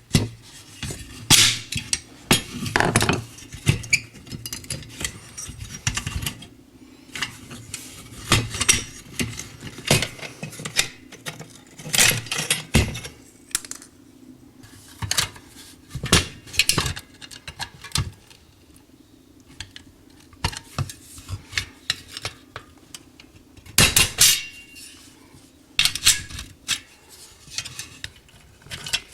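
Irregular metallic taps and clinks of tools on the sheet-metal parts of an antique toy pop gun as its rivets are removed, with a faint steady hum underneath.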